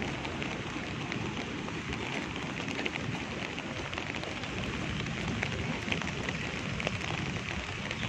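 Steady heavy rain falling, with many small, scattered drop hits.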